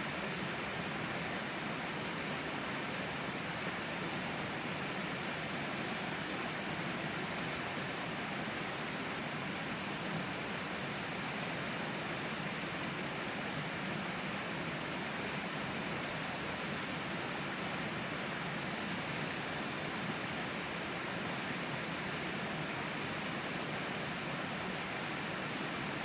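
River water flowing right beside, a steady even rushing noise, with a steady high-pitched tone running over it.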